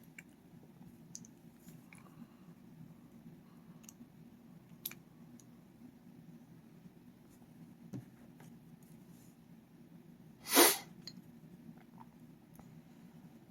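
Faint, scattered small clicks and taps of lock picks and a tension tool handled at a padlock, over a low steady hum, with one louder short burst of noise about ten and a half seconds in.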